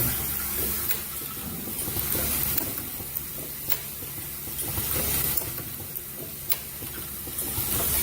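Automatic plastic zipper slider mounting and combining machine running steadily, a sharp click roughly once a second over a continuous hum and hiss.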